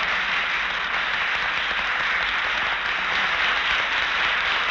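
A large audience in a hall applauding steadily, heard through an old film soundtrack that cuts off the highs.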